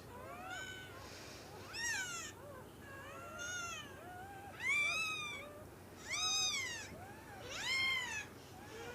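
Newborn Great Dane puppy crying: about six high-pitched cries, each rising then falling in pitch, roughly one every second and a half.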